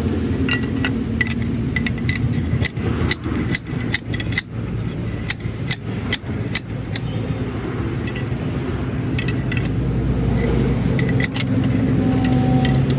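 A vehicle engine runs steadily, with many sharp metallic clicks and clinks over it that come in clusters and pause for a couple of seconds in the middle.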